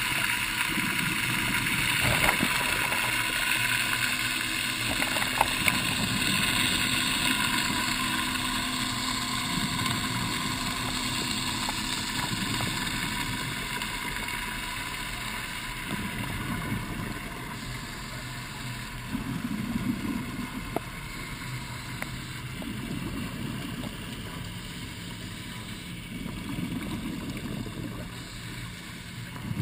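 Underwater sound heard by a diver's camera: a steady mechanical drone with several held tones, and in the second half the rushing bubbles of a scuba regulator exhalation every few seconds.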